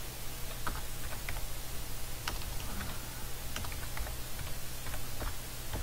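Keys typed on a keyboard: a run of irregular clicks, about three a second, while a number is keyed in. A steady low hum sits underneath.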